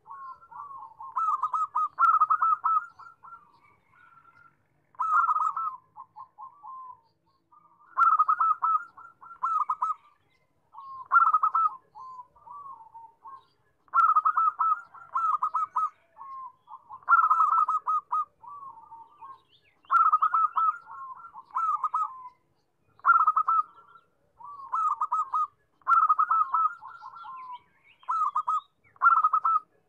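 Zebra dove (perkutut) cooing: phrases of quick, rolling coo notes, repeated again and again with short pauses between them.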